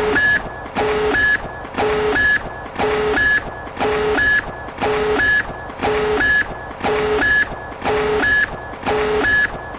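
A harsh electronic countdown beep repeating once a second, ten times. Each beep is a steady tone edged with hiss, loud for about half a second and then softer, marking each second of a launch countdown.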